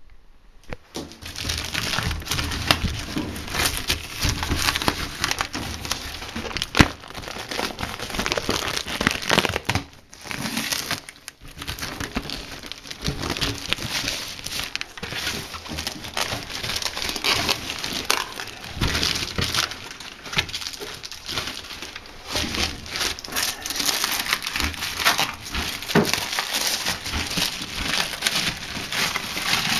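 Clear plastic stretch wrap crinkling and crackling irregularly as it is handled and pulled off a new tire.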